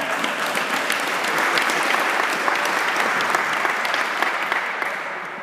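Audience applauding: many hands clapping, building up over the first couple of seconds and tapering off near the end.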